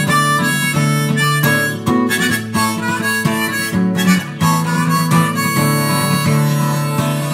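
Harmonica in a neck rack playing held melody notes over strummed chords on a Maton acoustic guitar.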